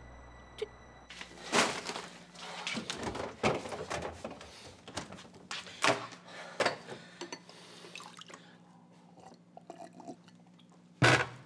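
Kitchen handling sounds: a shopping bag and bottle clattering and a drink poured from a bottle into a ceramic mug, in a run of clicks and knocks. A single loud, sharp knock comes near the end.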